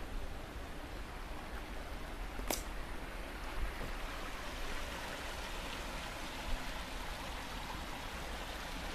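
Steady rushing water noise, with one sharp click about two and a half seconds in.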